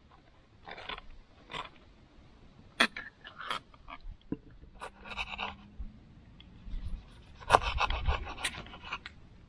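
Table knife scraping pesto across crisp toasted bread in short strokes, then a knife slicing cherry tomatoes and knocking on a wooden cutting board, the loudest part near the end.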